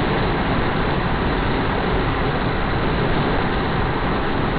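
Steady road and wind noise inside a moving car's cabin, an even rushing hiss with no distinct engine note.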